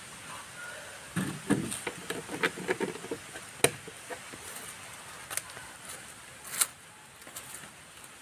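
Scattered light knocks, clicks and rustles of handling: a plastic water jerrycan being picked up and carried, and footsteps on dry leaf litter.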